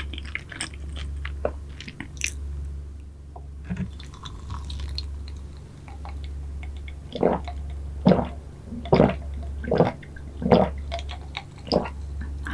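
Close-miked chewing of soft pastry, with small wet mouth clicks, settling after about seven seconds into a steady rhythm of about one chew a second. A steady low hum runs underneath.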